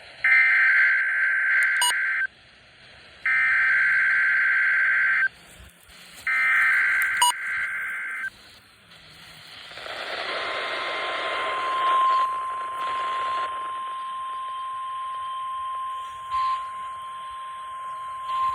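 NOAA Weather Radio Required Weekly Test: the SAME digital header sent three times as two-second bursts of warbling two-tone data, about a second apart. From about ten seconds in comes the steady 1050 Hz weather-radio alarm tone, with static hiss under its first few seconds.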